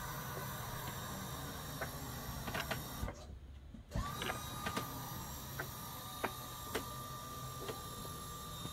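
HWH hydraulic slide-room pump motor running with a steady whine as it drives the slide room in. It cuts out for about a second around three seconds in and starts again, with scattered clicks throughout.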